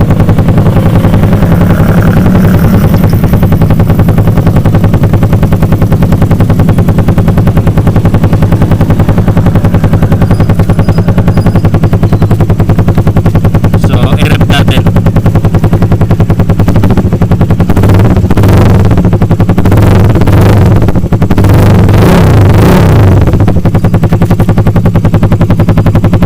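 Suzuki Raider 150's single-cylinder four-stroke engine running through an Akrapovic muffler with its silencer insert removed: a loud, bassy, full exhaust note at a fast pulsing idle, blipped several times in the second half.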